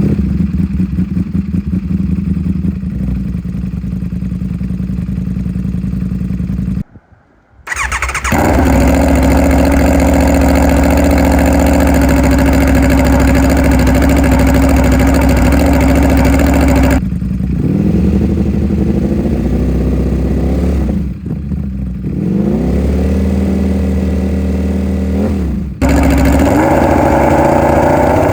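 V4 superbike engine through a racing exhaust with no catalytic converter, idling steadily with a short break about seven seconds in. From about seventeen seconds in it is revved three times, the pitch rising and falling back each time.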